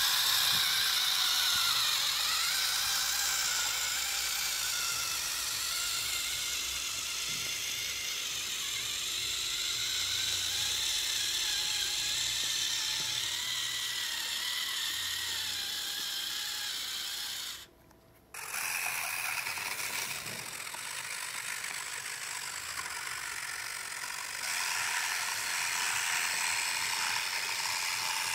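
Small electric drive motor and gears of a homemade RC model tractor whirring and whining while pulling a leveller through sand, the pitch wavering with the load. It breaks off for a moment about two-thirds of the way through, then resumes louder.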